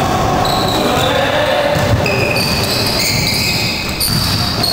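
Basketball game in a gym hall: a ball bouncing on the wooden court, with high squeaks that come and go and a background of spectators' voices, echoing in the hall.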